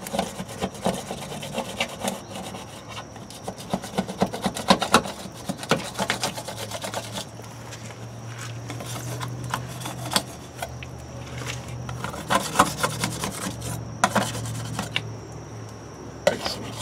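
A metal scraper scraping old sealant, softened with WD-40, off the RV's exterior wall around the city water inlet. Rapid strokes run for the first several seconds, then come only now and then, over a steady low hum.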